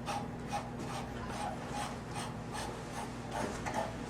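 Light metallic clicking and rubbing, about three irregular clicks a second, as the nuts of the flexible water-heater supply lines are threaded and tightened onto their fittings.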